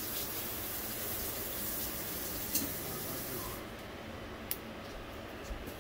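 Kitchen sink tap running water into the sink, shut off a little over halfway through. A couple of sharp clicks, one while the water runs and one after it stops.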